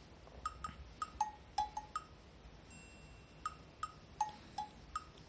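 A hand patting a cat's back: short hollow taps with a brief ringing note, about eleven of them in quick little runs with a pause in the middle. The taps sound solid and 'packed', the sign of a well-fleshed cat.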